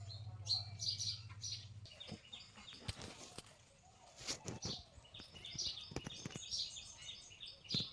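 Faint birds chirping, with a low hum for the first two seconds and a few scattered clicks.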